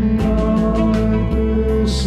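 Rock band music: guitar over a steady drum beat with cymbal hits, without vocals.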